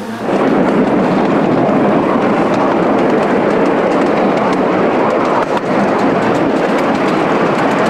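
Steady rumble and clatter of a 7.25-inch gauge miniature railway train running along the track, heard from aboard the passenger cars.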